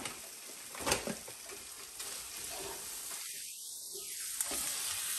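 Frozen peas and spiced masala sizzling in a frying pan as a wooden spatula stirs them, with a single knock about a second in.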